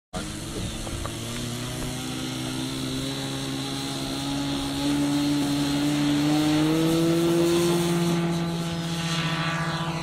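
Model aircraft's Irvine 53 two-stroke glow engine running under power during the takeoff roll. Its pitch rises steadily as the model speeds across the grass and lifts off, then holds. Near the end the pitch drops as the model climbs away past the microphone.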